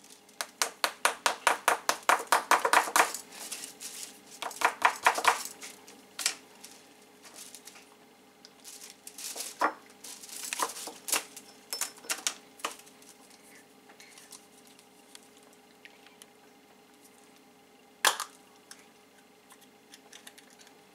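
A Kinder Surprise egg being unwrapped and handled: a rapid run of foil crinkles and small clicks for the first three seconds and again briefly about five seconds in, then scattered light clicks and rustles. One sharp click comes about eighteen seconds in as the yellow plastic toy capsule is pried open.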